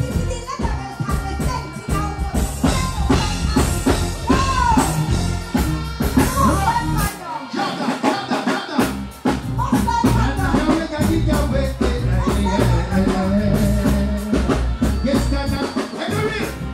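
Live reggae band music over a loud PA, with drums, bass and a singer's voice. About halfway through, the bass and kick drop out for a moment before the band comes back in.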